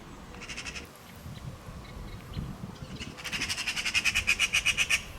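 Eurasian magpies giving their harsh, rapid alarm chatter, a short rattle about half a second in, then a longer, louder rattle of about ten calls a second near the end: the mobbing call of adults defending their fledgling from a cat.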